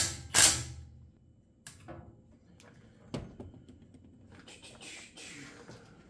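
Two short bursts from a cordless drill-driver running screws into a chainsaw body, then a few light clicks and knocks and some rustling as parts and tools are handled on a metal workbench.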